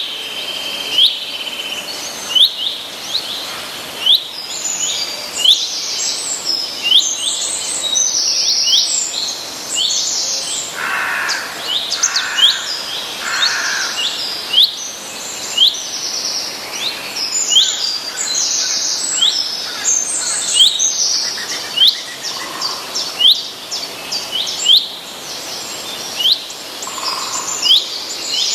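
Several songbirds singing together. One repeats a short sharp chirp steadily, more than once a second, while others sing fast trilling phrases above it. Three lower, softer notes come close together about halfway through.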